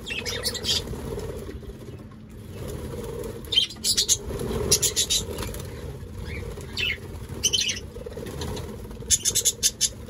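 A flock of budgerigars fluttering their wings as they land on and leave a hand-held bunch of greens, with runs of quick high chirps, busiest about four to five seconds in and again near the end.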